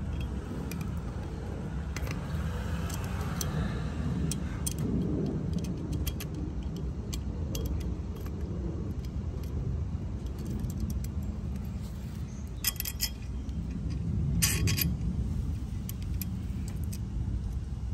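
Small metallic clicks and rattles from a steel motor mounting band and its bolts being handled and threaded on a blower motor by hand, with two louder clinking rattles about two-thirds of the way in, over a steady low rumble.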